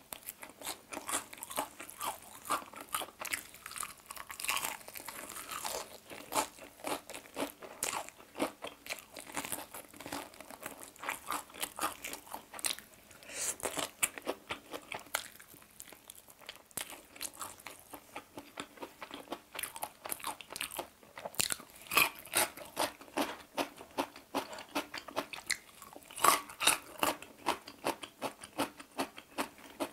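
A person biting and chewing a crispy fried chicken drumstick: a close run of sharp crunches from the fried batter, with wet chewing between bites. The crunches come louder about two-thirds of the way through and again shortly before the end.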